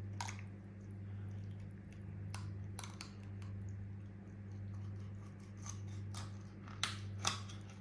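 Cutting along the breastbone of a raw quail: a handful of short, sharp snips and cracks of small bones being cut through, over a steady low electrical hum.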